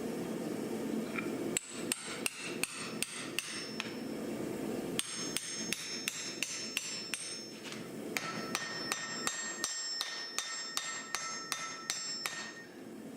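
Hammer striking metal on an anvil while forging an axe, about three blows a second in three runs with short pauses between, each blow leaving a bright metallic ring. A steady rushing noise is heard before the blows begin.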